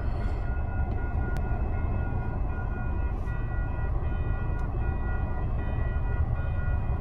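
Railway level-crossing warning bell ringing steadily over a low, constant rumble, heard from inside a car waiting at the lowered gates.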